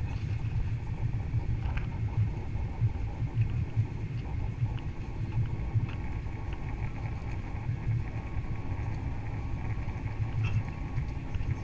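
Steady in-cabin noise of an Airbus A330 airliner on approach: a constant low rumble of the engines and airflow heard from a window seat.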